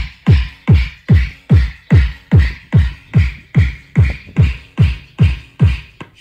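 Car audio system with Eros subwoofers and Pioneer 6x9 speakers playing a bass-heavy electronic track. A deep kick that drops quickly in pitch repeats about two and a half times a second, with a crisp hiss on each beat.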